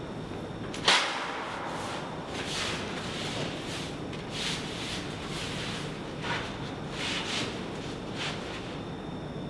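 A large black sheet being handled and hauled up a wall: a sharp crackling snap about a second in, then repeated crinkling rustles.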